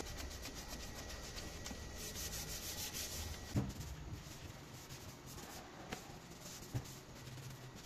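A pine cabinet door rubbed by hand with a pad in back-and-forth scrubbing strokes, with three light knocks along the way.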